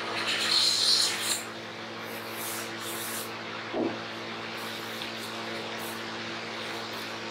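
Hand plane shaving along the edge of a hardwood leg. The loudest stroke comes in the first second or so, then lighter strokes follow, with a short knock about four seconds in. A faint steady hum runs underneath.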